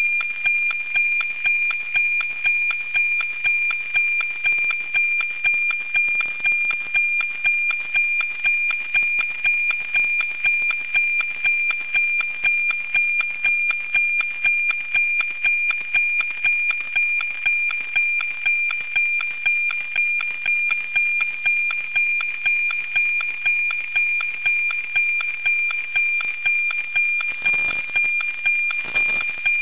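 NOAA-19 APT weather-satellite signal received on an RTL-SDR and FM-demodulated: a steady 2400 Hz tone with an even tick-tock beat about twice a second from the image's line sync pulses. A couple of brief hisses of static come in near the end.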